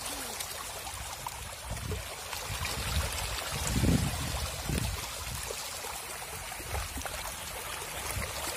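Hybrid magur catfish thrashing at the pond surface in a feeding frenzy: a constant churning splash of water, with heavier splashes swelling to a peak about four seconds in.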